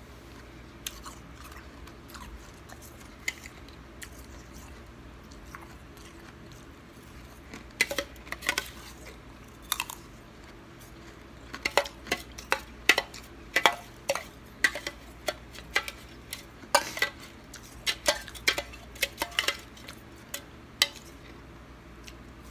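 Metal spoon scraping and clinking against a stainless steel bowl, and crunchy chewing of icy snow, in sharp clicks that come sparsely at first and then in dense clusters through the second half.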